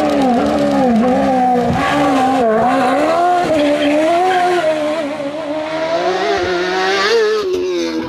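Hillclimb racing car's engine at high revs, its pitch dipping and rising again and again as it lifts off and accelerates through bends. It gets a little quieter in the second half.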